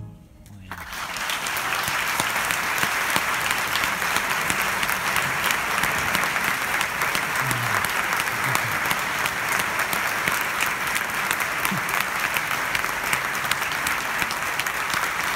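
Audience applauding at the end of an orchestral performance, swelling up within the first second and then steady and dense.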